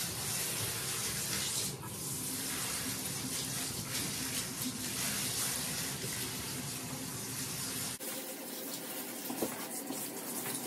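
Handheld shower sprayer running, water spraying onto a standard poodle's coat in a bathtub. The steady rush loses its low rumble at a cut about eight seconds in.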